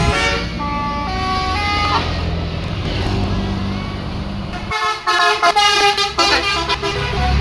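Bus telolet horn playing a short tune of stepped notes over the bus engine's rumble in the first two seconds. It sounds a second run of notes about five seconds in, when the engine rumble drops away.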